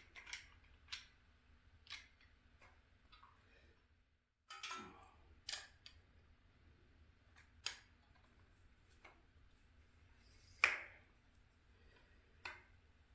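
Scattered metallic clicks and clinks from a cam bearing installer rod and wrench being worked inside an engine block's cam tunnel while a cam bearing is fitted. The loudest clink comes about ten and a half seconds in.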